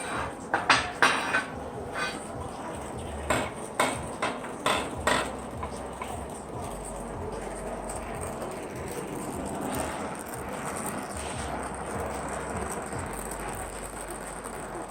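Copper pipe parts clinking and clanking against each other and the bench, about a dozen sharp knocks over the first five seconds, then a steady hiss of a soldering torch heating a joint for silver brazing.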